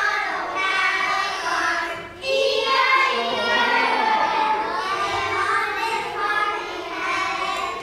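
A group of first-grade children singing a song together, with a short break about two seconds in.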